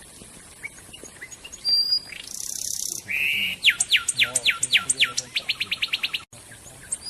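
Songbird singing: a few thin high chirps and a short harsh buzzy note, then a fast run of downward-sweeping whistled notes that speeds up as it goes.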